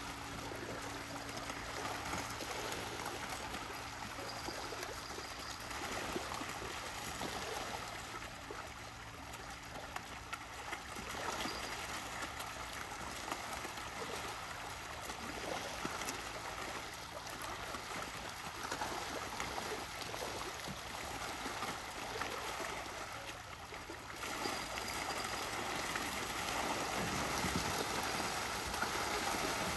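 Water trickling and gurgling steadily, with many small clicks in it. A faint steady low hum sits underneath during roughly the first ten seconds.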